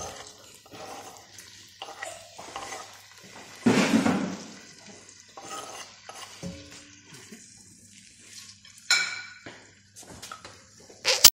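A knife scraping and tapping on a wooden cutting board and against a steel pan as sliced red peppers are pushed off into the pan, with oil sizzling. There is a louder rush about four seconds in as a batch drops into the pan, and a sharp knock near the end.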